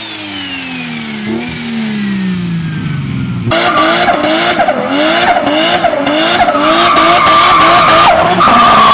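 Turbocharged car engine winding down, its pitch and a high turbo whine falling together. A little over three seconds in, the sound cuts to another hard-driven car whose engine pitch rises and drops about twice a second, joined later by a steady high squeal.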